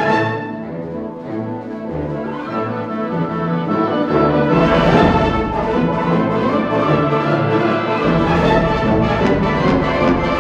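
Concert wind band, brass and woodwinds, playing sustained symphonic music. It eases off about a second in and swells louder again around halfway, with deep bass notes underneath.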